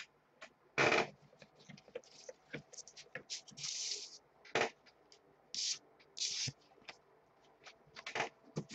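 Baseball cards being handled and gathered up on a table: scattered rustles, scrapes and light taps. The loudest is a short rustle about a second in.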